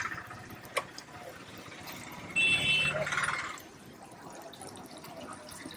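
Fish deep-frying in a wok of hot oil, sizzling steadily. A brief high-pitched tone comes in about two and a half seconds in and lasts about half a second.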